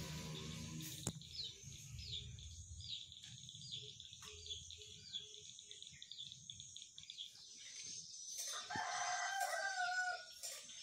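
Chickens: a short run of clucks midway and a rooster crowing about eight seconds in, over a small bird's falling chirps repeated about twice a second and a steady high hiss.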